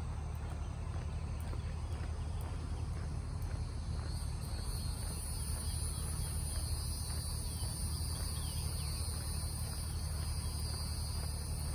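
Insects trilling steadily in high, even bands that grow stronger about four seconds in, over a steady low rumble.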